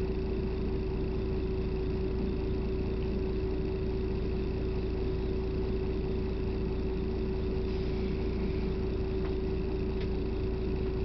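A steady hum: one constant tone over an even hiss, unchanging throughout, with a few faint ticks near the end.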